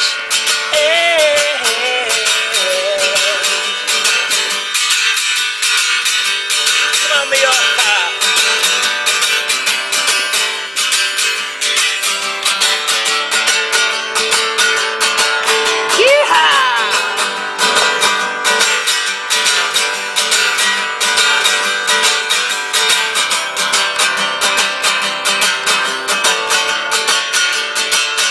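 Acoustic guitar strummed in a fast, steady rhythm, playing an original folk-rock song, with a few short sung notes near the start and about halfway through.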